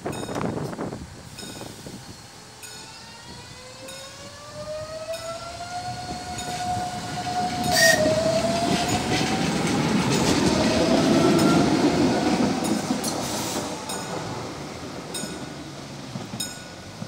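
CAF-UTA 3700 electric light-rail unit pulling away from a station: its electric drive whines, rising in pitch, with a sharp clack and a brief dip in the whine about eight seconds in before it climbs again. The wheels rumble loudest on the rails as the tram passes close, then fade as it runs off.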